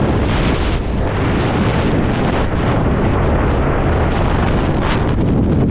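Loud wind buffeting the camera's microphone as the skydivers leave the aircraft and fall into the freefall airstream.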